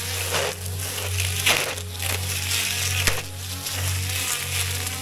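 Electric string trimmer (whipper snipper) running with a steady motor whine while its line cuts through overgrown weeds and grass, the cutting hiss swelling in several bursts. One sharp tick comes about three seconds in.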